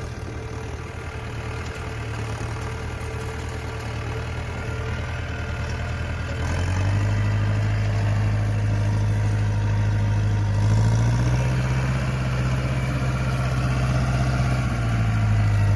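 Mahindra Arjun Novo tractor's diesel engine running steadily while pulling a rotavator through a field, getting louder as it comes closer. The engine note steps up about six seconds in, rises slightly around eleven seconds and drops back near the end.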